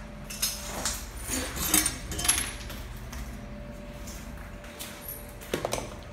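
Footsteps crunching over broken window glass and debris on a floor, a scatter of sharp crunches and glassy clinks, clustered around two seconds in and again near the end, over a faint steady hum.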